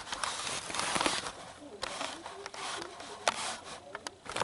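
Handling noise: rustling with scattered sharp clicks and knocks, busiest in the first second and a half, with one loud click a little past three seconds in.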